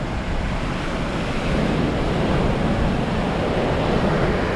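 Ocean surf washing onto a beach, swelling louder about a second and a half in, with wind buffeting the microphone.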